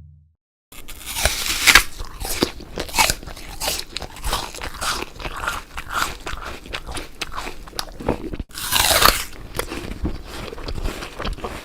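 Crunchy bites and chewing of a crisp apple: a steady run of wet crunches, with a louder fresh bite about three-quarters of the way through.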